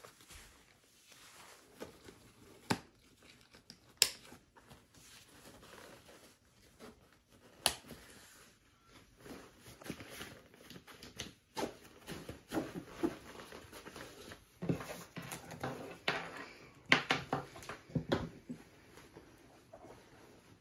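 Fabric of an Exo Mountain Gear K3 6400 backpack rustling and crinkling as it is packed, its straps and pockets handled, with a few sharp clicks and knocks scattered through.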